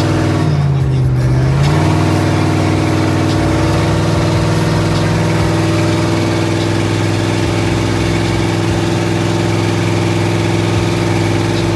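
Car engine running at a steady speed, its pitch dipping briefly about half a second in and coming back up by about two seconds in.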